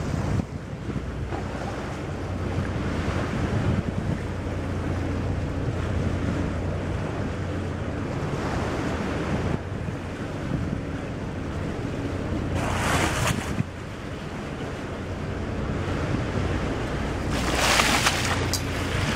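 Sea rushing along a boat's hull, with wind buffeting the microphone and a steady low engine hum. Twice, about two-thirds through and again near the end, there is a short loud rushing hiss as a white-beaked dolphin breaks the surface alongside.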